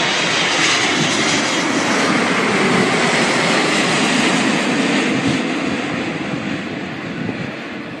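Airbus A380 airliner's four jet engines passing low overhead on approach to land: a loud, even rushing jet noise that slowly fades over the last few seconds as the aircraft moves away.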